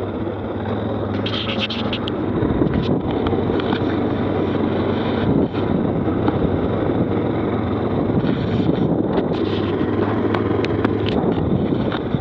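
Stels 800D quad bike engine running steadily under way, over a dense rumble of riding noise, with a few sharp clicks near the end.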